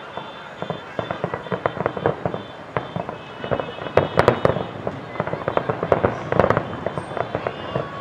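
Fireworks display: a rapid, irregular barrage of sharp bangs and pops from bursting aerial shells, loudest about four seconds in and again a little past six seconds.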